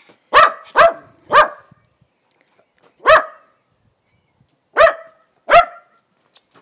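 A small dog barking on command, six single barks: three quick ones at the start, one on its own about three seconds in, then two more near the end.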